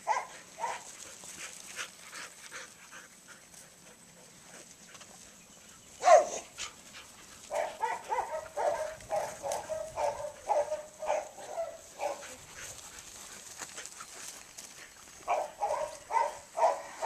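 An Australian shepherd barking in quick runs of short barks, about three a second, through the middle and again near the end, with one louder falling cry about six seconds in.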